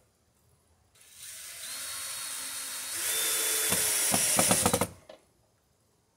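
DeWalt cordless drill running at the electrical box, starting about a second in and getting louder about two seconds later, with a rapid run of clicks near the end before it stops.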